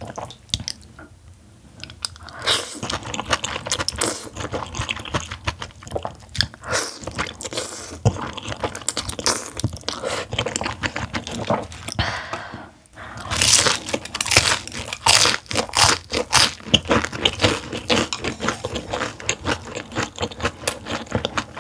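Close-miked eating sounds: jjambbong noodles being slurped and chewed, with many sharp, wet mouth clicks.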